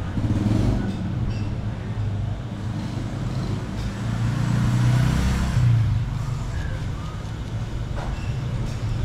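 Street traffic outside the shop: a steady engine rumble that swells about four seconds in, as if a vehicle passes, then settles back.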